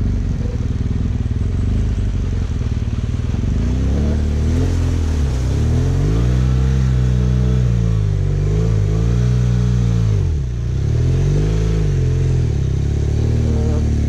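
Motor vehicle engine running under a steady low rumble, then revving up and down several times from about four seconds in, its pitch rising, holding and falling in repeated swells, easing off briefly about ten seconds in before revving again.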